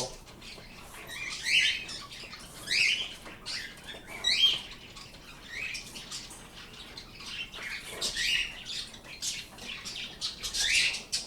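Pet birds calling: a series of short, rising chirps repeated every second or so, louder in the first half.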